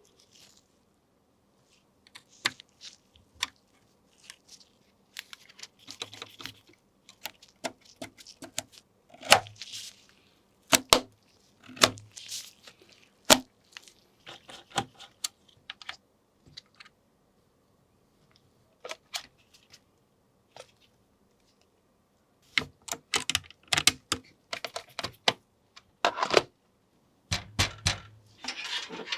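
Irregular clicks, knocks and scraping of computer parts and plastic being handled and fitted together during a PC assembly, with a few quiet gaps of a second or two.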